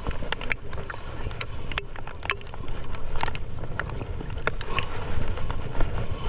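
Water lapping and splashing against a small boat's hull, with irregular sharp splashes over a low, steady rumble of wind on the microphone.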